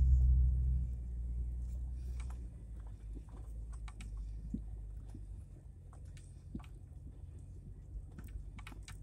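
Vehicle engine idling, a low rumble heard from inside the cab. It is loudest in the first second and then settles to a steadier, quieter rumble with faint scattered clicks.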